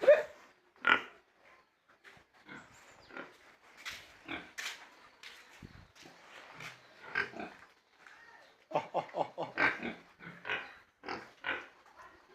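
Pigs grunting in short, irregular calls, with a quick run of grunts about nine seconds in.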